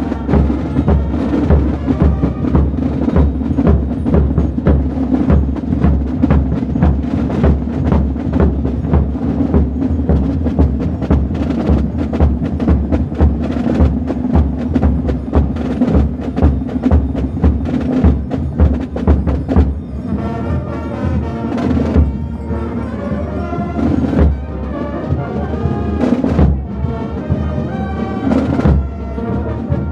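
Carnival street music: drums beating a steady, driving dance rhythm with many sharp clacks. About twenty seconds in, the deepest drum beats drop back and a band's tune stands out more clearly.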